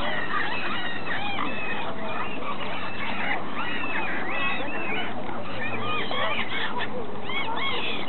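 A large mixed flock of waterbirds calling over one another: a dense, unbroken chatter of many short calls that rise and fall in pitch.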